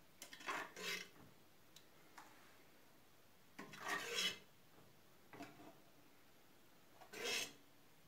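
A metal ladle scraping against the inside of a pressure-cooker pot while scooping out rice pudding, in three short rasping strokes: about a second in, around four seconds in, and near the end.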